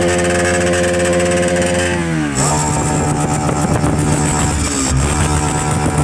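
Motorcycle engine running at raised revs, then dropping back about two seconds in and settling into a steady idle.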